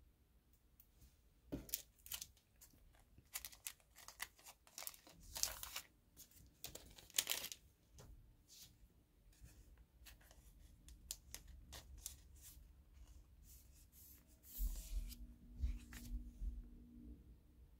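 Glossy photo cards being slid, shuffled and laid down on a tabletop: light paper rustles, snaps and taps, busiest about five to eight seconds in. A low rumble comes near the end.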